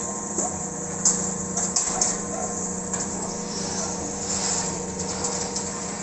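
Paddle feed mixer, driven by a 1.5 hp electric motor through a gearbox, running with a steady hum while its paddles churn a dry powdery mix with a continuous hiss. A few sharp clicks come about one to two seconds in.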